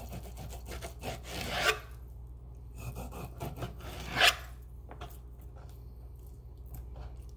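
Cutco kitchen knife slicing raw chicken breast on a plastic cutting board: soft rasping strokes of the blade through the meat and against the board. Two strokes are louder, one just over a second in and one about four seconds in.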